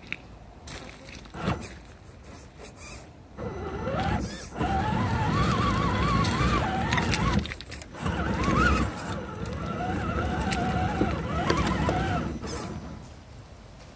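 Electric motor and gears of an RC scale crawler whining, the pitch rising and falling with the throttle, in two stretches of about four seconds each starting about three seconds in.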